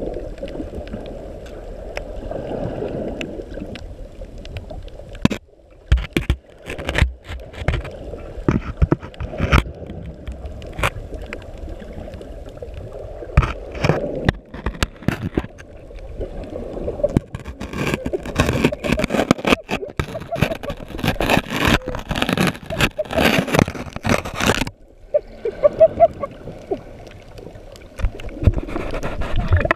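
Underwater sound through a GoPro's waterproof housing: muffled water noise with many knocks and scrapes as an octopus grips and handles the camera with its arms and suckers. The knocking is densest about two-thirds of the way through.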